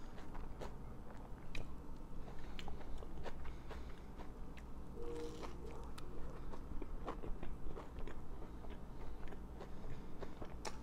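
Close-miked chewing and biting of a sandwich on lightly toasted chickpea-flour bread filled with sprouts and tomato: wet mouth clicks and small crunches, with a short hum about five seconds in.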